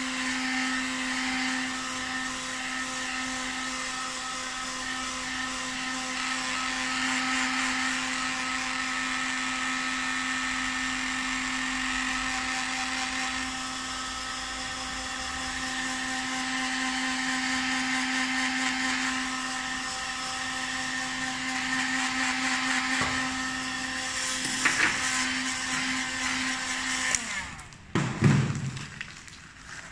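Handheld electric hot-air gun running steadily, a motor hum with rushing air. It switches off near the end, followed by a few knocks of handling.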